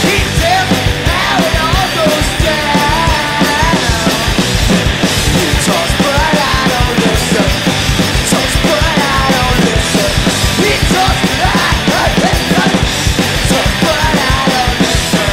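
Punk rock band playing live: electric guitar, bass guitar and a fast drum kit beat, with a male lead singer singing over it.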